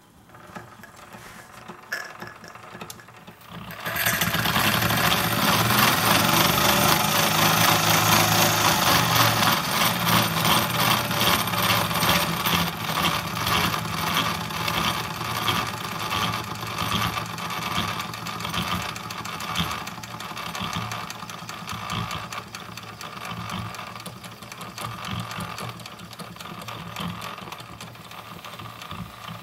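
Wilesco model live steam tractor running, its stamped metal gears making a noisy, fast rattling clatter. The clatter sets in suddenly about four seconds in and slowly gets quieter.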